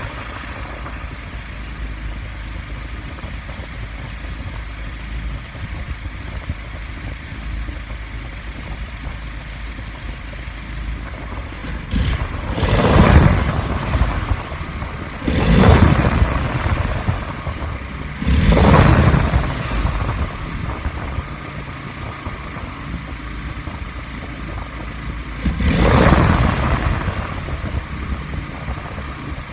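Engine idling with a steady low rumble, revved up and back down four times in short blips, three close together and a last one a few seconds later.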